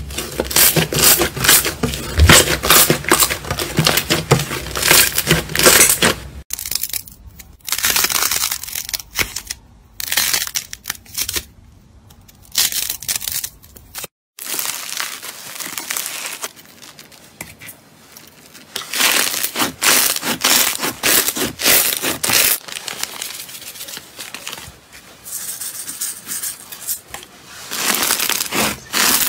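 Slime worked by hand in a run of short clips. Thick purple slime is pressed and poked, making dense sticky clicks and pops, followed by a quieter stretch of sparse pops. After a brief dropout about 14 seconds in, squishing turns into dense crackling as a yellow foam-bead slime is kneaded.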